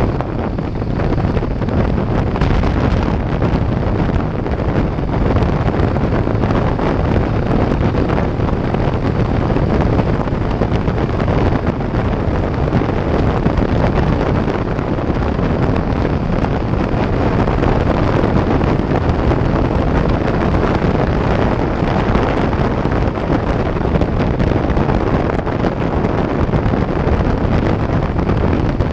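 Heavy, steady wind noise buffeting a GoPro microphone on a Harley-Davidson motorcycle riding at highway speed.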